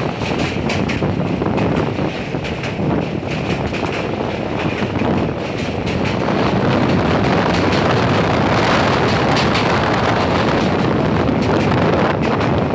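Express train running across a bridge: a steady rumble of wheels and carriage with wind buffeting the microphone at the open window, growing a little louder about halfway through.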